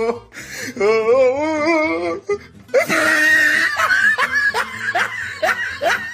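A person laughing in a run of short repeated laughs, with music.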